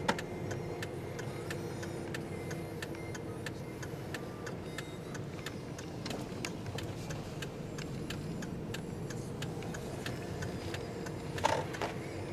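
A car's turn-signal indicator ticking steadily, about two to three ticks a second, over the steady hum of the engine and road noise heard from inside the cabin. A brief voice sound comes near the end.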